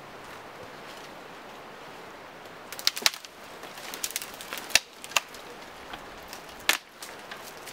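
Dry dead tree branches cracking and snapping as they are pulled down by hand, with twigs and dry brush rustling. After a quiet stretch of steady outdoor hiss, a quick run of sharp cracks comes about three seconds in, more single cracks follow, and the loudest crack comes near the end.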